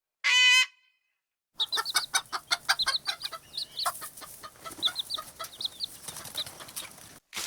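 A short pitched honk-like tone, then, from about a second and a half in, chickens clucking and peeping in a dense run of short high calls and quick clicks, which cuts off sharply just before the end.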